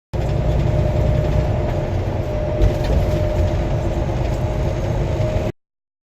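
Semi truck driving down the highway: a steady engine and road rumble with a faint steady hum above it and one knock a little past halfway, cutting in and out abruptly.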